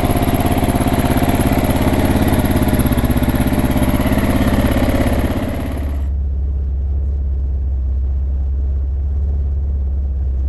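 Kawasaki KLR 650's single-cylinder four-stroke engine running steadily at idle. About six seconds in the sound turns abruptly muffled: the higher tones drop away while a deep low rumble carries on.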